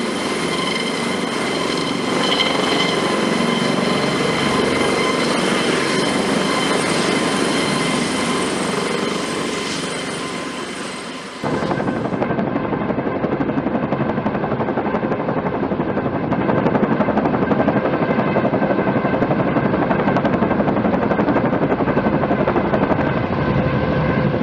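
Airbus AS365 Dauphin twin-turbine helicopter running, a steady turbine whine over rotor noise. About halfway through the sound changes abruptly to a fast, even rotor-blade beat with a lower whine.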